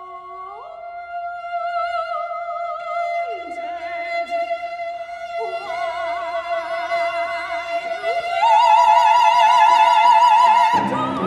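Soprano and two cellos performing slow classical music: long held notes joined by slow pitch slides. A loud high note with wide vibrato is held from about two-thirds of the way through, and lower notes come in just before the end.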